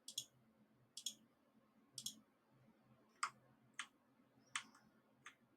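Light clicking at a computer while map layers are switched: three paired clicks about a second apart, then four sharper single clicks, against near-silent room tone.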